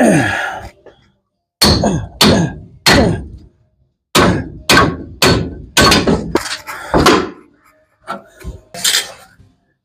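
Repeated hammer blows, about a dozen strikes in irregular bursts, each followed by a short ring that falls in pitch. They are knocking a rusted, seized mount and its bolts loose.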